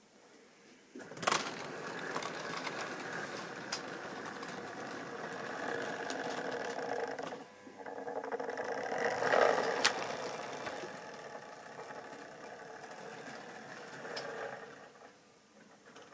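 Tri-ang/Lima OO-gauge model goods train running past on sectional track: the tank wagons' wheels rattle and click over rail joints and points, over the steady hum of the locomotive's small electric motor. It starts about a second in with a sharp click, gives another sharp click about ten seconds in, and fades away near the end as the train moves off.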